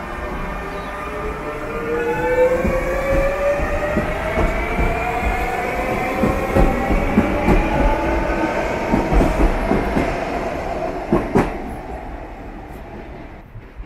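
Metrorail X'Trapolis Mega electric train pulling out of a station: its traction motors whine, rising steadily in pitch as it speeds up, while the wheels clack over the rail joints. The sound fades over the last couple of seconds as the train moves off.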